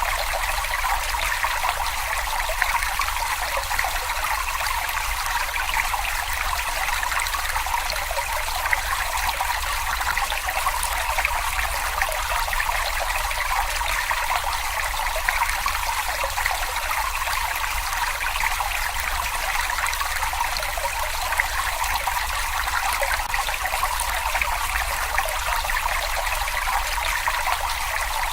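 Babbling brook: water trickling and burbling steadily, with no breaks or changes.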